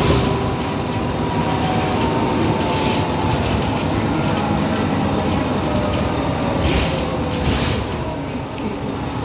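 Inside New World First Bus 6017 on the move: steady engine and road noise, with a faint whine that slides slowly down in pitch. Several short hissing rattles come through, about three seconds in and twice near the end.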